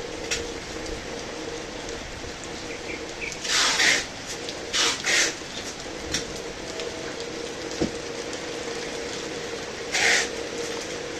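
Heavy rain falling steadily, with a few short, sharp chirps standing out over it: a longer one about three and a half seconds in, two close together around five seconds, and one near ten seconds.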